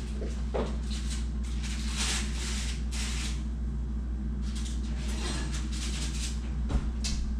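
Rustling and light scraping as a foil-wrapped packet is set on an oven rack, over a steady low hum, then a sharp knock near the end as the oven door is shut.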